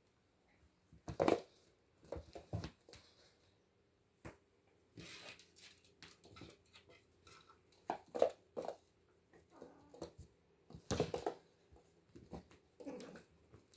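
Oriental kittens scrambling and play-fighting around a fabric cat bed on a wooden floor: scattered thumps, scrabbling and rustling, with the loudest knocks about a second in, around eight seconds and around eleven seconds.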